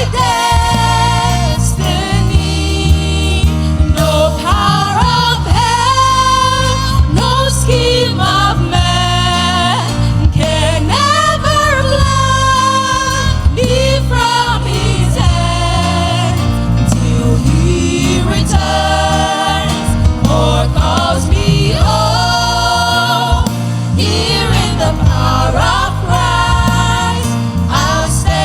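Worship song sung by voices over a band accompaniment, with long held sung notes.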